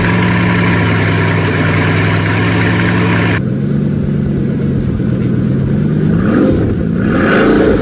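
Bugatti Chiron's W16 engine idling steadily, then, after a cut to another clip, revving up once near the end with its pitch rising.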